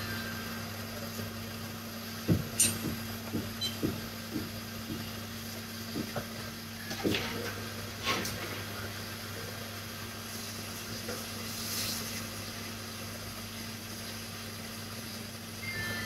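Small hand tools clicking and tapping during soldering work on a laptop motherboard: a quick run of light clicks a couple of seconds in, and a few more about seven to eight seconds in. A steady low hum runs underneath.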